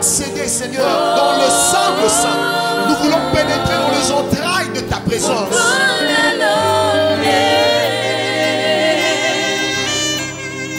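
Live gospel worship song: a male lead voice sings with vibrato, joined by female backing singers, over sustained band accompaniment.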